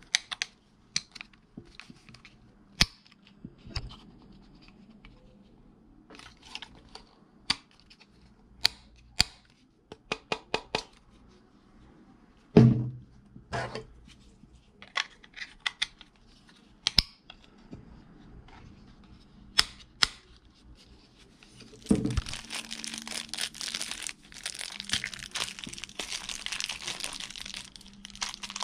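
Scattered sharp hard-plastic clicks and a few knocks as a walkie-talkie and its belt clip are handled. About two-thirds of the way in, a clear plastic bag starts crinkling continuously as it is unwrapped.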